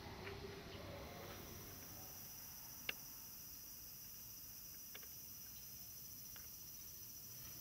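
Faint street ambience carried by a steady high-pitched insect trill, broken by a few short sharp clicks, the loudest about three seconds in.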